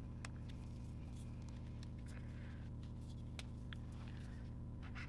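A dual-tip marker scratching faintly on paper, with a few light clicks of the pen, over a steady low hum.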